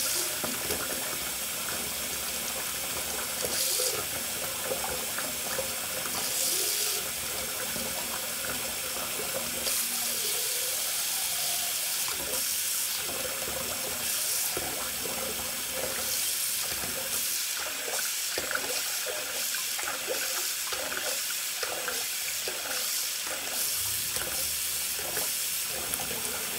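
Bathroom sink faucet running steadily, water splashing into the basin, with small irregular splashes.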